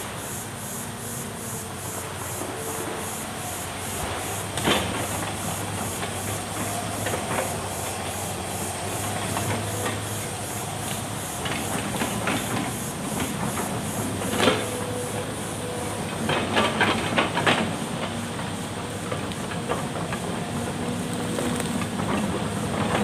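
Hitachi Zaxis hydraulic excavator running, its engine and hydraulics working steadily as the boom and bucket move. Several sharp knocks and clanks come about 5 s in, near the middle, and in a quick cluster a little later.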